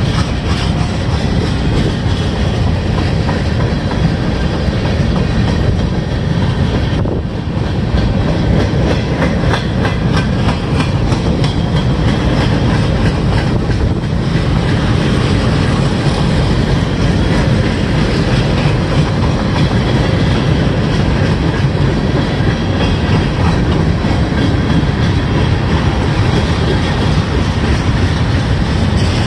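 Freight train of tank cars and centerbeam flatcars rolling past close by: a steady, loud rumble of steel wheels on rail with a rapid clickety-clack of wheels over the rail joints.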